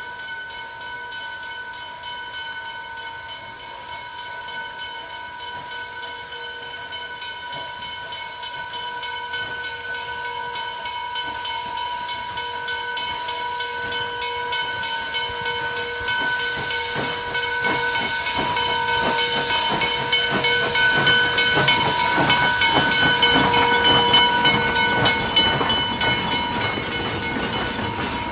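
Steam locomotive Pennsylvania Railroad 643, a 0-6-0 switcher, sending off steam as a steady, whistling hiss with a fixed pitch, growing louder as it moves off and passes. From about the middle on, a fast irregular clatter of running gear and wheels joins it.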